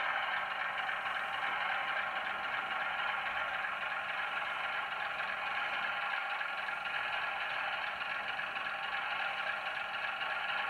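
Bachmann OO-gauge Class 105 DMU model train running slowly along the track: a steady mechanical running sound from its motor and wheels, without a break.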